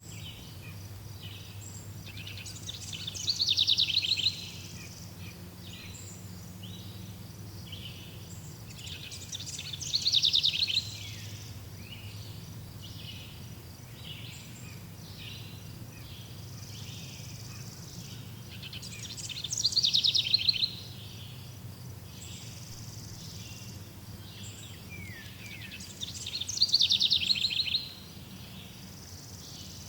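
Songbirds chirping. One bird repeats a loud, rapid trilled phrase four times, each about a second and a half long and falling in pitch, at gaps of six to ten seconds. Other birds make short chirps in between, over a steady low hum.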